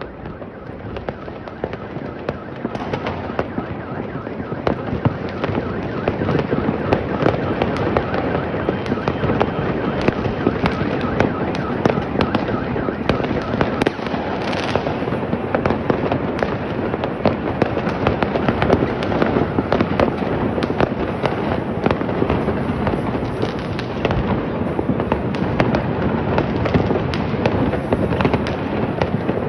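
Many fireworks going off at once: a dense, continuous crackle of bangs and pops, building up over the first few seconds and then staying thick.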